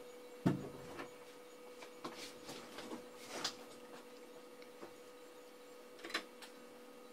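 Small clicks and taps of parts being handled and set down on a workbench mat, with one sharper knock about half a second in. A steady electrical hum runs underneath.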